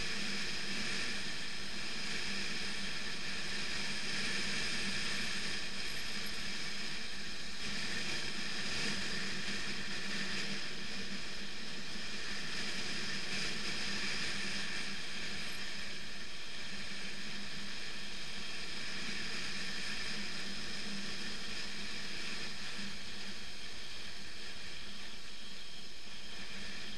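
BMW F 650 GS motorcycle riding at a steady pace on a gravel road: an even engine hum under a constant hiss of wind and tyre noise.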